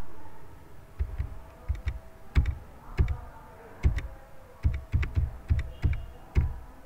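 Computer keyboard being typed on: irregular short clicks with dull knocks, roughly three a second, over a faint steady hum. A louder sound fades out during the first second.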